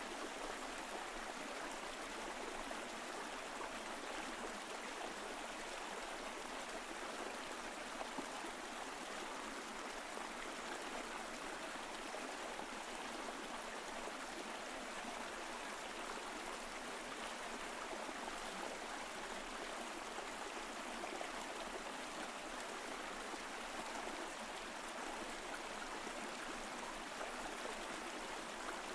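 Mountain stream flowing steadily over rocks, an even rush of water with no change.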